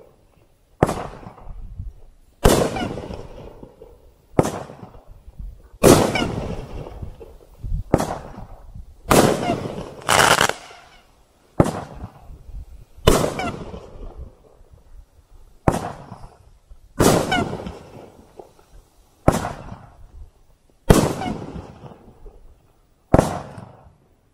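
A 500-gram "Lincoln" firework cake firing shot after shot, a sharp bang about every one and a half to two seconds, each trailing off over a second or so.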